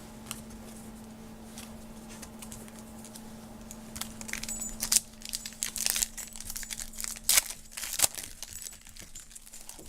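Trading-card pack wrapper crinkling and tearing open, a run of sharp crackles starting about four seconds in, after a few seconds of faint steady hum.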